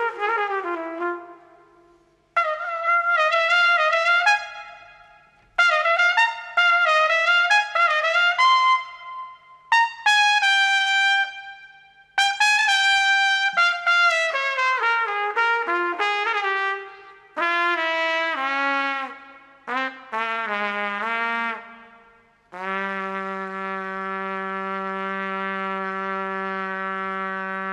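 Unaccompanied jazz trumpet solo: short phrases separated by brief silences, many falling in pitch, ending on one long held low note for about the last five seconds.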